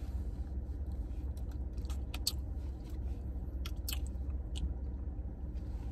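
Soft mouth clicks and smacks of someone eating close to the microphone, half a dozen scattered over several seconds, over a steady low hum.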